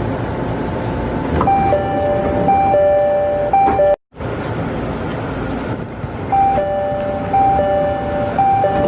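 A two-tone chime sounding over train and station noise, a short high note and a longer low note, repeated about every three-quarters of a second, typical of a Japanese train's door chime. It plays in two stretches, broken by a sudden cut about four seconds in.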